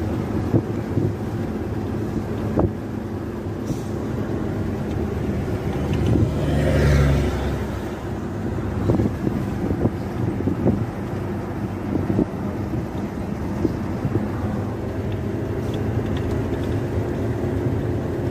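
Scania 124 truck's six-cylinder diesel running steadily, heard from inside the cab with tyre and road noise and small sharp cab rattles. About six seconds in, a louder whoosh swells and fades over about two seconds.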